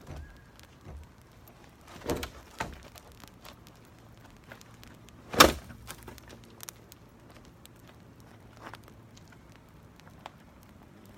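Sporadic sharp knocks and snaps of sticks and dry cedar sprigs being handled while a campfire is being built, with small crackles between. The loudest knock comes about five and a half seconds in, after two smaller ones about two seconds in.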